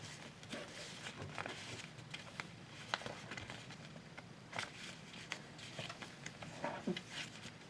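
A sheet of paper being folded and creased by hand into a paper airplane: soft rustling with scattered small sharp crackles, the sharpest about three seconds in and again a little past four and a half seconds.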